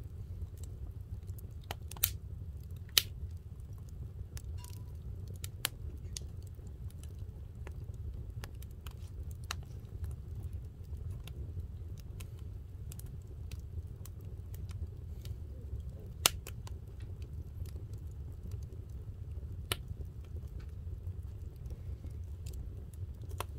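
Scattered sharp clicks and knocks over a steady low rumble, the loudest about two and three seconds in and again about sixteen seconds in.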